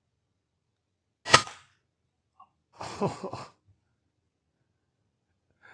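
A single suppressed .22 PCP air rifle shot (FX Impact M3) about a second in: a sharp crack that dies away quickly. About a second and a half later comes a second, rougher noise lasting under a second.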